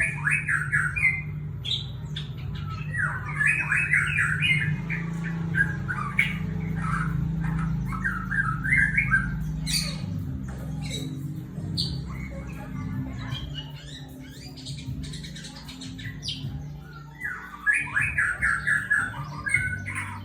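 White-rumped shama (murai batu) singing in repeated bursts of rapid, chattering phrases with short pauses between them, over a steady low hum.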